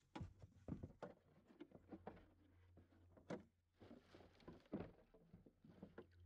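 Irregular light knocks and taps with small splashes, typical of a kayak paddle striking the water and bumping the plastic hull, over a faint low hum.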